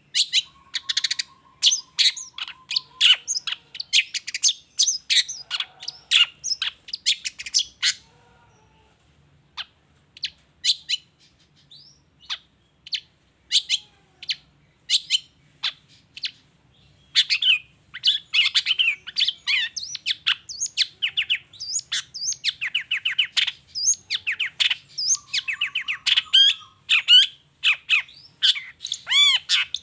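Long-tailed shrike (cendet) singing in full voice: a fast, dense run of sharp chirping notes. About eight seconds in it thins out to scattered single notes for several seconds, then picks up into a dense run again.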